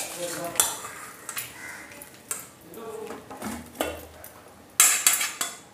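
Steel spoon scraping and knocking against a black iron kadhai as oil-soaked boiled herbs are scooped out, in a handful of separate clinks with the loudest near the end.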